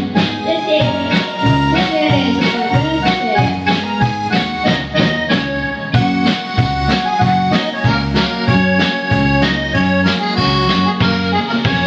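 Live band playing a song's instrumental introduction: an electronic keyboard carries a reedy, accordion-like melody over bass guitar and a drum kit keeping a steady beat with regular cymbal ticks.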